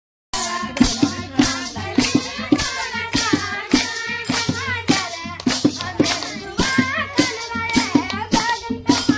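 Group singing with steady rhythmic clapping, about three beats a second, beginning just after a brief dropout.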